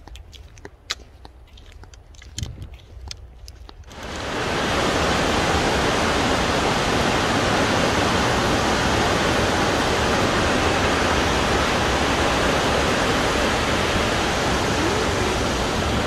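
Waterfall at Burney Falls: a steady, loud rush of falling water that starts abruptly about four seconds in, after a few quieter seconds with faint clicks.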